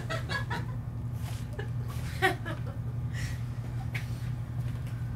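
Steady low hum in a small theatre, with scattered faint stirrings and chuckles from the audience and one slightly louder brief sound about two seconds in.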